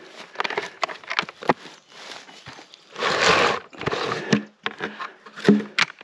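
Irregular knocks, clicks and scrapes of close handling, with a short rush of noise about three seconds in.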